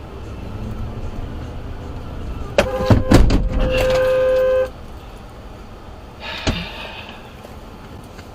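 A car horn is held for about two seconds on one steady note, then cuts off sharply. A few sharp knocks and thumps come just before it, and one more knock follows a couple of seconds later. Under it all is a steady low rumble of road and engine noise.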